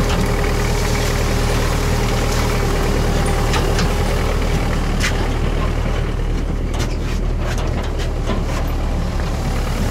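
MTZ-52 tractor's four-cylinder diesel engine running steadily under load, with a few knocks and rattles.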